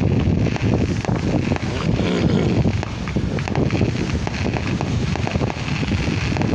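Wind buffeting the microphone: a steady, fluttering rumble with crackles.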